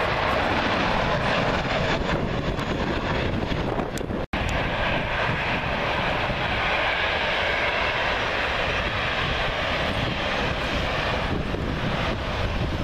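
Jet airliner engines running at high power as an Airbus A321 climbs out after takeoff, a steady roar. The sound cuts out abruptly about four seconds in, then steady jet engine noise carries on from a second Airbus airliner on the runway.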